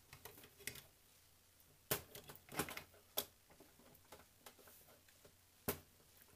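Scattered light clicks and knocks of a metal model locomotive body shell and its chassis being handled and fitted together, with the loudest knocks about two seconds in and again near the end.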